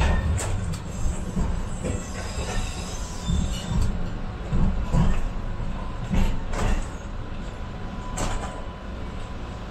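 MBTA Green Line light-rail car running along its tracks, heard from inside the front of the car: a steady low rumble with scattered sharp knocks and clacks from the wheels and car body, and a faint thin squeal from the wheels in the second half.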